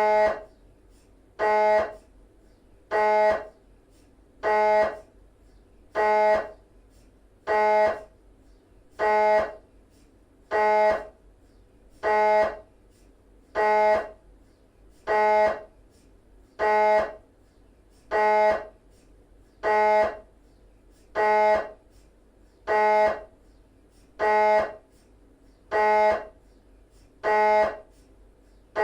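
GE 3-tesla MRI scanner's gradient coils running an axial 3D Cube T2 sequence: a loud pitched buzzing tone pulsing evenly about once every second and a half, each pulse lasting about half a second.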